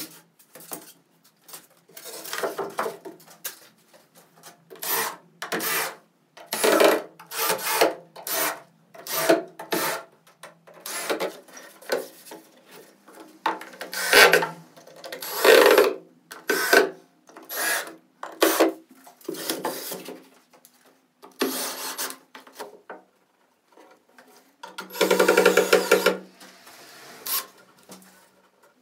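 A string of irregular abrasive strokes worked by hand on wood, each lasting up to about a second, with short pauses between them. The longest stroke comes near the end.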